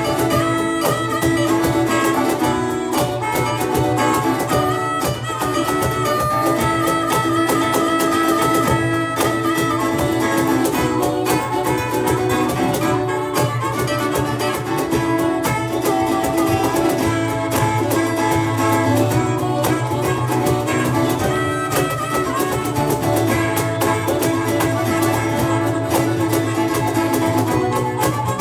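A live band playing a song with acoustic guitar and drums under a melodic lead line of long held notes.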